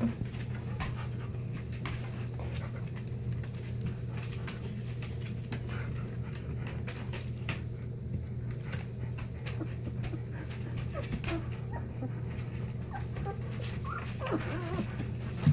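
Two-week-old Newfoundland puppies panting and shuffling about on newspaper, with many small rustles and scratches, and a few short whimpers near the end. A steady low hum runs underneath.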